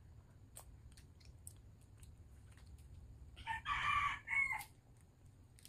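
A rooster crowing once, a little over a second long, about three and a half seconds in; otherwise only faint clicks.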